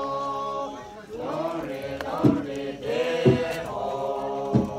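A group of voices chanting in long held notes, sliding between pitches in places, with three heavy thumps about a second apart in the second half.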